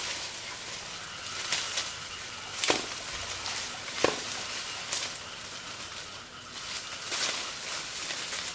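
Lychee twigs snapping and leaves rustling, a sharp crack every second or so, as fruit clusters are broken off the tree.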